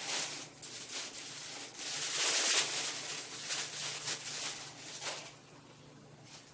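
Crackling and rustling of packaging as a boxed statue is handled and unwrapped. The noise comes in irregular bursts, loudest about two seconds in, and dies away after about five seconds.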